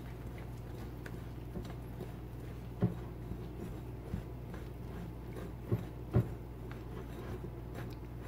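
Wire whisk stirring thick banana-bread batter in a glass bowl by hand, a soft scraping with a few sharp knocks of the whisk against the glass, the loudest about three and six seconds in. A steady low hum runs underneath.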